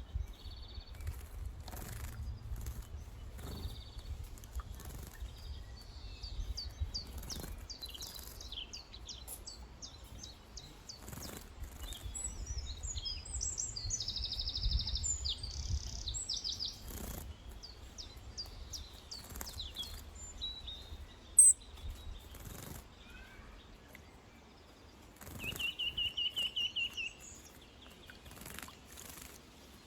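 Small wild birds chirping and calling, with a fast trill of repeated notes about 25 seconds in. Repeated brief splashes and wing flutters from birds bathing, and a low wind rumble through the first half.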